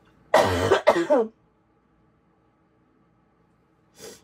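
A woman coughs and clears her throat once, about half a second in, a harsh burst lasting about a second.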